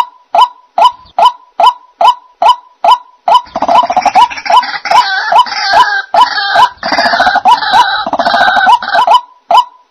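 White-breasted waterhens calling: a steady run of short, evenly spaced hooting notes, about two and a half a second. From about three seconds in comes a louder stretch of harsh croaking and grunting, the 'ruak-ruak' chorus, lasting about six seconds, and then the even notes resume near the end.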